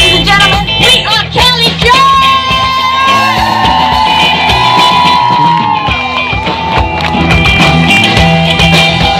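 Live rock band playing: women singing over electric guitar, bass and drums, with one long held high note in the middle.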